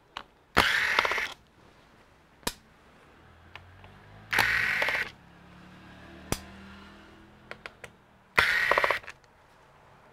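Small electric screwdriver undoing screws in a laptop's bottom case, its motor whirring in three short bursts of under a second each. A few sharp clicks fall between the bursts.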